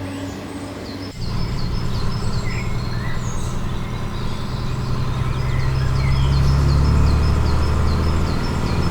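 A steady, low engine-like rumble starts suddenly about a second in and grows louder in the second half, with a bird chirping repeatedly over it.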